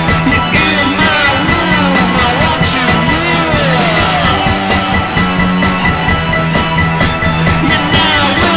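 Rock band recording: drums and a steady, pulsing low note, with repeated swooping pitch glides over the top.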